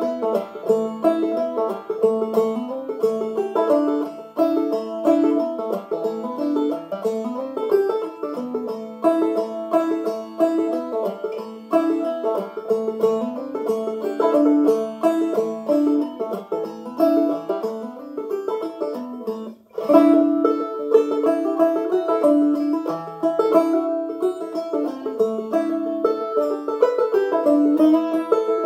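Ome Tupelo open-back banjo played clawhammer style in sawmill tuning: a steady run of plucked melody notes against the ringing drone string. There is a brief break about two-thirds of the way through, after which the playing comes back louder.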